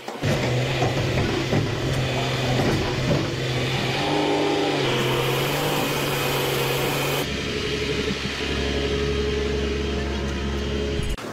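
Heavy diesel engines of crawler crane machinery running with a steady low hum. The engine note changes abruptly about four, five and seven seconds in, and the sound cuts off just before the end.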